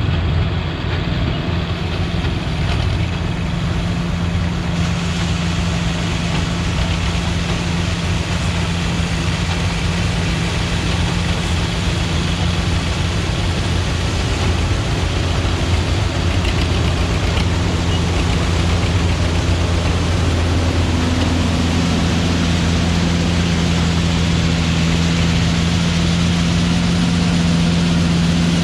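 Vintage corn-harvesting machinery running steadily: an engine drone under an even rush of machine noise, with another engine tone coming in about two-thirds of the way through.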